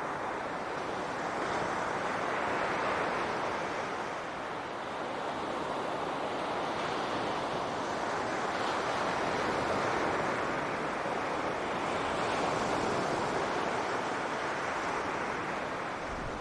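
Ocean surf washing onto a beach: a continuous rush of waves that swells and eases every few seconds.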